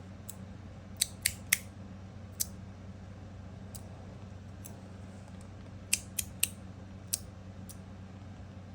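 RapidPRO stainless steel magnetic fidget slider worked by hand, its plates snapping into place on the corners with sharp metal clicks. There are about a dozen clicks at irregular spacing, two runs of three in quick succession among them.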